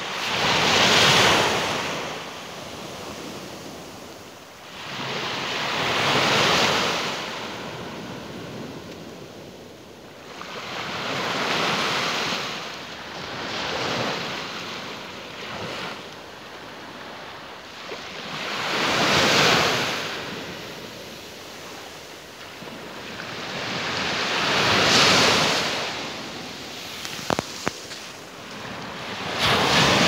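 Small waves breaking and washing up a sandy, shelly shore, each rush of surf swelling and fading away about every five to six seconds. A couple of brief clicks near the end.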